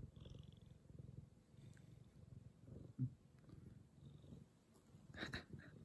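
Domestic cat purring close to the microphone, a faint low rumble that swells and fades in steady pulses. A soft thump about halfway through and a brief rustle near the end.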